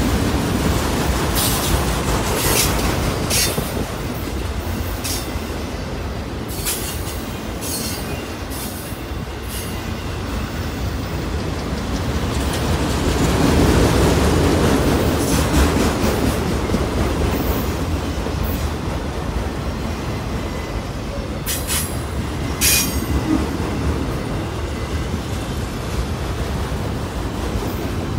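A freight train of autorack cars rolling past close by: a steady rumble of steel wheels on rail, broken by scattered short, sharp clanks.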